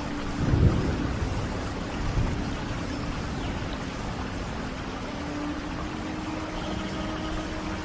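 Steady rain hiss, with a brief low thump about half a second in and a smaller one about two seconds in. Faint held low notes sit underneath.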